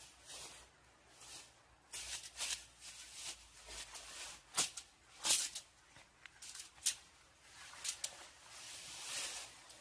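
Irregular rustling and handling noises, with a few sharper clicks or snaps in the middle.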